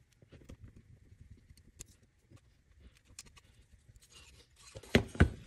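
Faint scraping and small ticks from a small hex screwdriver driving M3x6 screws into a cable chain end. About five seconds in come two loud, sharp knocks close together.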